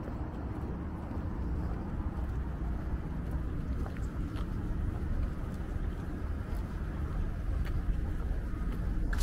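Harbourside city ambience: a steady low rumble of road traffic and boat engines, with a few faint scattered clicks.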